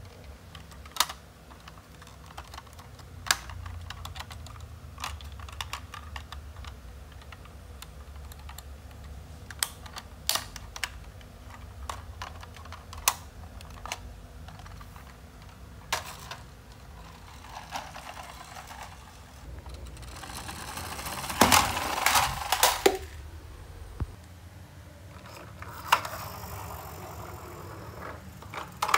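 Plastic parts of a toy garbage truck clicking and clattering as they are handled: single sharp clicks every second or two, and a longer bout of rattling and scraping about three quarters of the way through.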